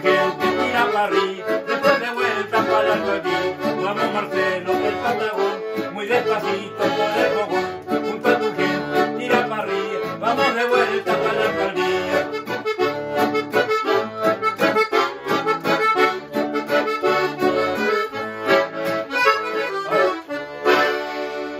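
Piano accordion and strummed acoustic guitar playing a ranchera together in a steady rhythm, ending on a final chord near the end.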